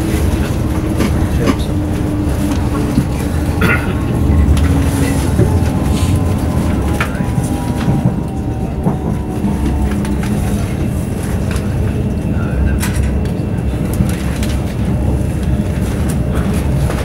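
Inside the passenger saloon of a Class 395 'Javelin' electric multiple unit running along the line: a steady low rumble of wheels on rail, with scattered sharp clicks from the track.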